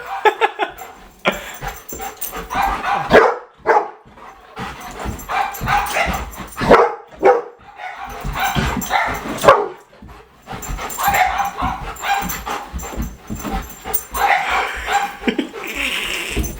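Golden retriever barking and yipping in many short, irregular bursts, with a few whimpers, while chasing a laser pointer dot.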